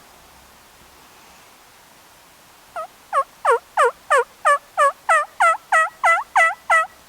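A run of about a dozen hen-turkey yelps, about three a second, starting near the middle and going on until just before the end.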